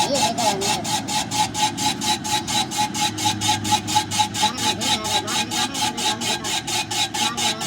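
Rapid, regular rasping strokes of a metalworking tool on metal, about four or five a second, over a steady ringing tone.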